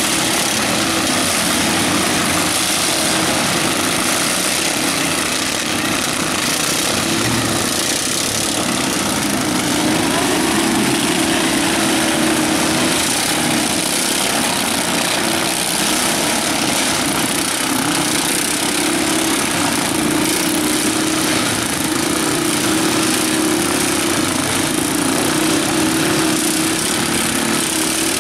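Several riding lawn mower engines running together, their pitch wavering up and down as they rev and labour against each other in the mud.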